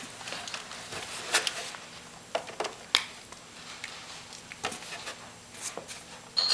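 Scattered light knocks and taps as a plastic leaf blower is handled and set upright on a cardboard disc, with a marker tracing around its nozzle near the end.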